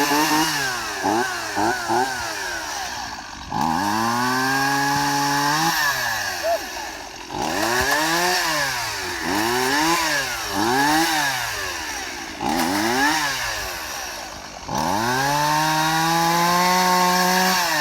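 Old Stihl two-stroke chainsaw running and being revved: a few quick blips of the throttle at first, then held at high speed, pulsed up and down several times, and held high again near the end.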